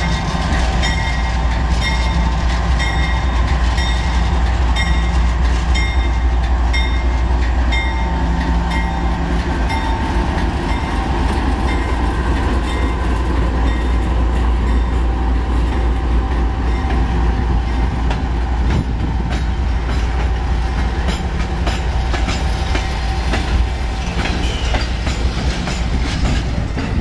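Union Pacific GE AC6044CW and EMD SD70M diesel locomotives passing close by under power as they pull a double-stack container train away from a stop: a deep, steady engine rumble with a few sustained tones. In the later part, the clicks of wheels over rail joints come through as the loaded stack cars roll by.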